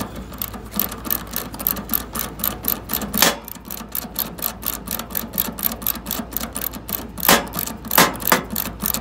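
Ratchet wrench clicking rapidly and evenly, about five clicks a second, as it cranks open the hex-key stem of a brass high-side (liquid line) service valve on an air-conditioning condenser, letting the refrigerant charge into the line set after evacuation. A few louder clacks stand out about three seconds in and near the end.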